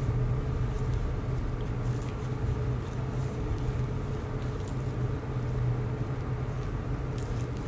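Cryolipolysis machine running with a steady low hum, with a few faint clicks over it.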